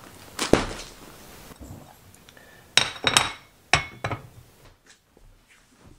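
Knocks and clinks of things being set down: a thud as a package is put down about half a second in, then a cluster of hard clinks and taps around the middle as a mug is put down.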